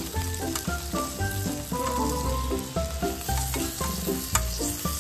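Steak sizzling in butter on a hot griddle plate, moved about with metal tongs, with a sharp click about four and a half seconds in. Rhythmic background music plays over the sizzling.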